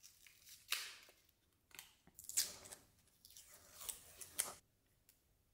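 Aluminium foil adhesive tape being peeled and pried off a hard drive's casing: about five short, faint crinkling, tearing rasps.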